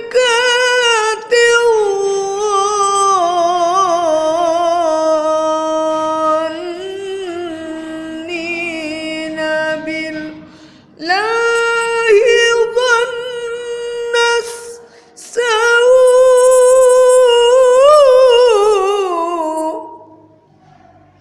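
A woman's melodic Quran recitation (qiroah) with no accompaniment. She holds long, ornamented notes that slide downward, in three phrases with short breaks between them.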